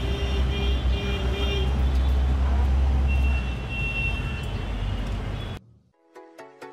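Road traffic with a heavy low engine rumble and some faint high tones. It cuts off abruptly about five and a half seconds in, and electronic music with a beat starts just before the end.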